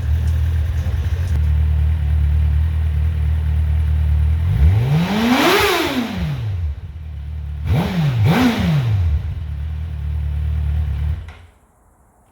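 2007 Suzuki GSX-R 1000's inline-four engine on its stock dual exhaust, idling, then revved once up and back down, followed by two quick throttle blips. The sound cuts off suddenly about eleven seconds in.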